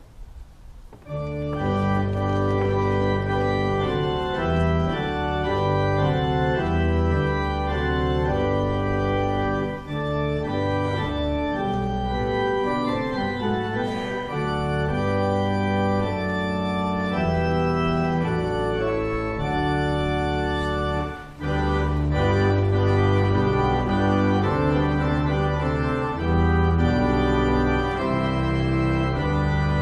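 Church pipe organ playing full sustained chords over a moving bass line. It starts about a second in and breaks off briefly about 21 seconds in.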